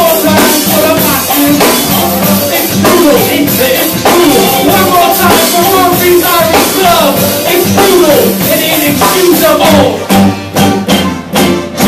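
Live band playing: electric guitar, congas and drum kit together. Near the end the music breaks into a few separate accented hits.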